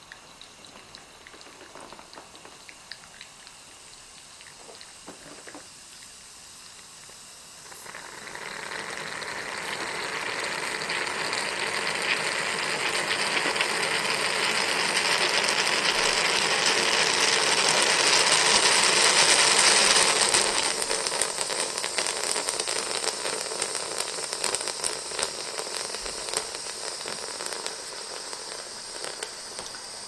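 Cast-aluminium Mignon 2 Tazze stovetop espresso pot on a gas burner: coffee drips quietly at first, then about eight seconds in a loud hissing and sputtering starts, swells for some twelve seconds and then eases off. This is steam forcing the last water through the grounds and out of the spout, the sign that the boiler has run dry and the brew is finished.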